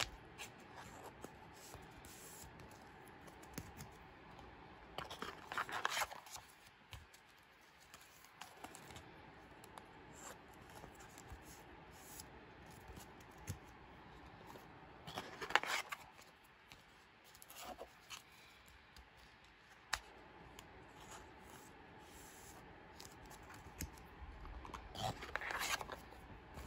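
Photocards being handled and slid into plastic card sleeves: soft plastic rustling and scraping with a few light clicks, and three louder scratchy swishes about ten seconds apart as cards go into sleeves.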